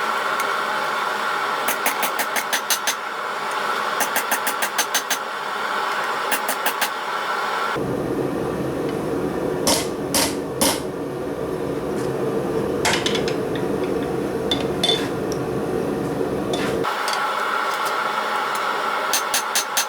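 Quick runs of hammer blows on hot spring steel, about six strikes a second, over a steady drone. From about 8 s to about 17 s the sound switches abruptly to a deeper steady rumble with a few scattered knocks, then the hammering runs return.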